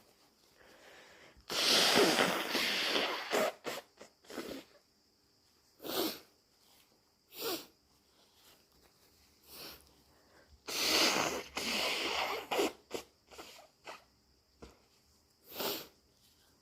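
A person sneezing hard twice, two loud, wet sneezes about nine seconds apart, with short sniffs between them.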